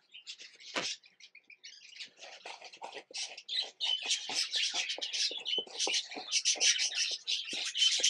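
A paper towel rubbed in quick, repeated strokes across a plastic budgie nest-box tray, starting about two seconds in, with budgerigars chirping.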